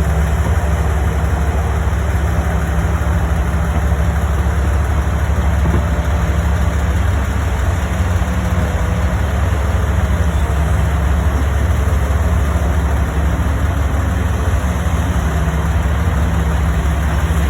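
Heavy diesel mining machinery running steadily, a deep low engine hum that holds level throughout, with a higher band that comes and goes.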